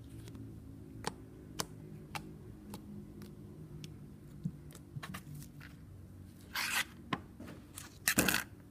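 Slime and its containers being handled: scattered small clicks and taps, then two short scratchy rasps, the second about a second after the first, near the end.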